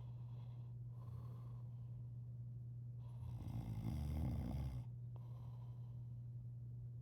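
A sleeping man snoring: one long snore starting about three seconds in and lasting over a second, with quieter breathing around it.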